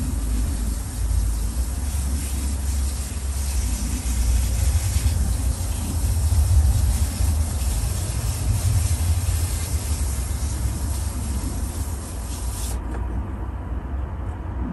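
Water running over freshly pulled carrots as they are rinsed: a steady hiss over a low rumble. The hiss cuts off about two seconds before the end, leaving the rumble.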